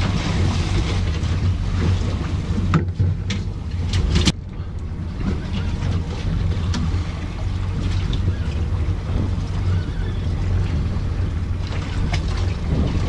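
Wind on the microphone and water noise aboard a small fishing boat at sea, over a steady low hum, with a few sharp knocks a little after the start.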